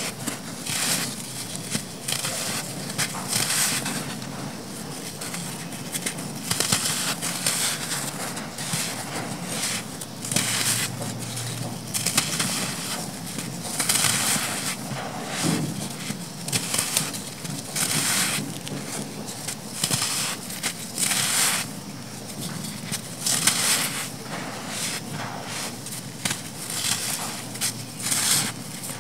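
Hands crushing dry clumps of black sand, with gritty crunching and the hiss of loose sand pouring through the fingers in repeated bursts.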